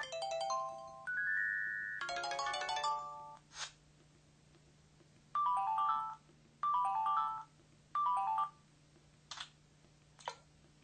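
Motorola RAZR MS500 mobile phone playing its built-in ringtone and alert tones in turn: a short melodic chime run, a brief swish, then the same short electronic tone pattern three times, and two more quick swishes near the end.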